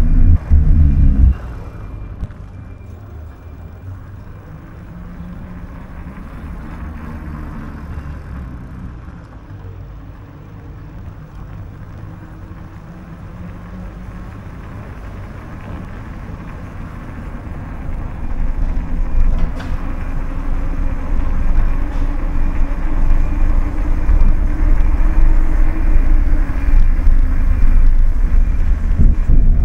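City street traffic with a low rumble. A loud burst of rumble cuts off about a second in, and the rumble builds up again from about two-thirds of the way through.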